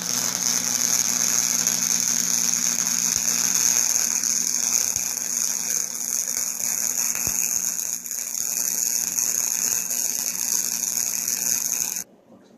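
MIG welder running a bead on thin body steel: a steady hiss with a low hum underneath, which stops suddenly near the end.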